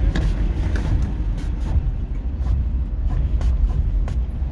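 Inside a moving 1990 Toyota Crown station wagon: a steady low rumble of road and engine noise, with scattered light knocks and clicks.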